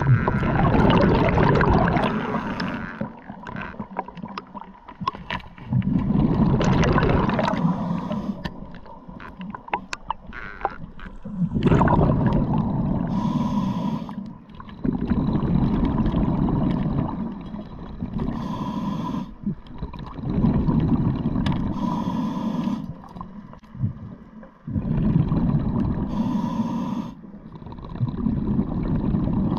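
Scuba diver breathing through a regulator underwater: a hiss on each inhale and a low rumble of exhaled bubbles, repeating about every four to five seconds. A few sharp clicks around the middle come from handling the speargun and powerhead.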